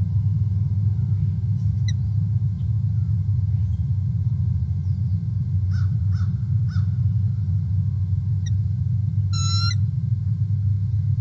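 Steady low rumble with scattered bird calls over it: a short call about two seconds in, three quick calls around six seconds, and a clearer, harsher call near the end.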